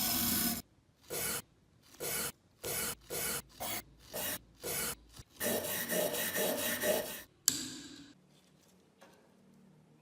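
Rough hand strokes scraping the rust on an old hammer: a run of separate short strokes, then about two seconds of fast continuous scraping, ending in a single sharp knock.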